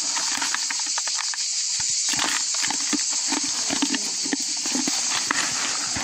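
Goats eating corn kernels from a hand and a plastic bucket: a busy run of crunching, clicking and rustling, with a few short low sounds around the middle, over a steady high hiss.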